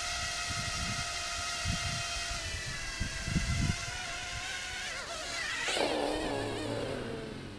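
Huajun W606-16 Volcano mini drone's motors whining steadily while it sits on the ground, with a few low thumps over the first few seconds. About six seconds in the pitch wavers as it is picked up and set down, then winds down and stops near the end.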